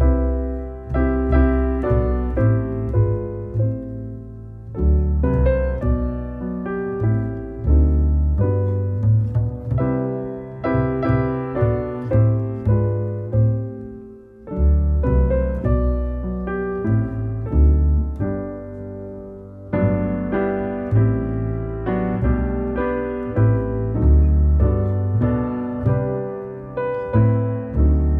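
Background piano music with a steady bass line, played in phrases of repeated notes.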